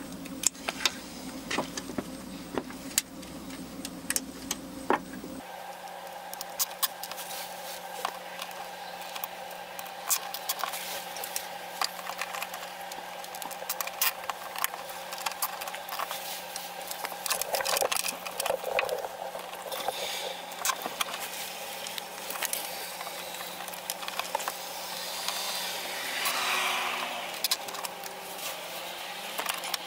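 Wires and small plastic connectors being handled and fastened by hand: a run of light clicks, ticks and rustles of plastic and wire, scattered irregularly.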